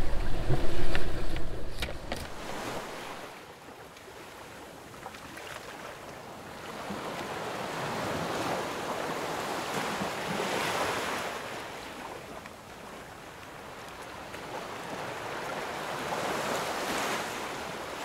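Sea water rushing and splashing past a sailboat's hull under sail: a steady hiss that swells and fades in slow surges, loudest about ten seconds in. For the first two seconds, wind rumbles on the microphone, with a few sharp clicks.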